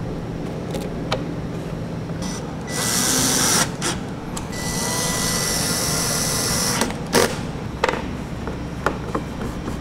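Cordless drill/driver running in two bursts to drive the taillight's mounting fasteners: a short run about three seconds in, then a longer run of about two seconds, each with a steady high whine. Near the end come a few sharp clicks as the plastic trim panel is pressed back into place.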